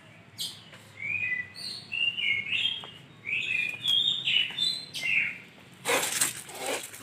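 Lovebird chirping: a run of short, quick chirps that glide up and down in pitch, followed near the end by a louder, noisy burst about a second long.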